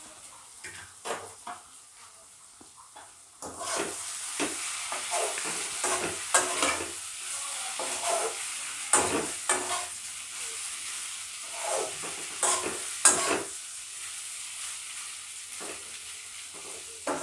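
Fried cauliflower pieces being stirred into a sizzling onion-garlic sauce in a metal kadhai with a wooden spatula, the spatula scraping the pan in repeated strokes over a steady frying sizzle. The first few seconds hold only a few soft knocks as pieces are dropped in; the sizzle and stirring start about three and a half seconds in.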